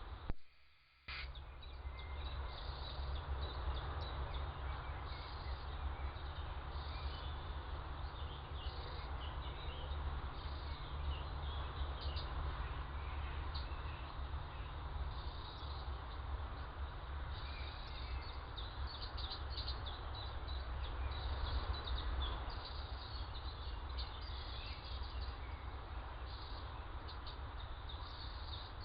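Outdoor ambience through a Bushnell trail camera's microphone: a steady low rumble and hiss, with short faint high chirps scattered throughout. A sharp click just after the start is followed by a brief dropout of about a second, as if the recording breaks there.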